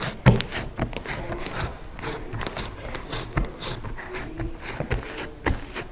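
Hands pressing and flattening a large mound of shaving-cream fluffy slime on a wooden table: irregular sticky squishes and small crackles, with a sharper slap about a third of a second in and another near the end.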